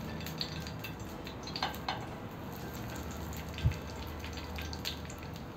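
Oil sizzling softly around rolled colocasia-leaf alu vadi shallow-frying on a flat iron tava over a low flame, with scattered small pops and crackles. A soft thump about two-thirds of the way through as a second roll is set down in the oil.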